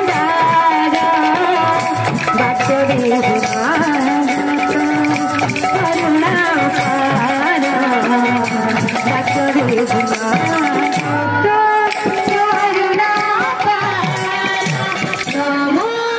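Kirtan folk music: a drum and small brass hand cymbals keep a steady beat under a sung melody.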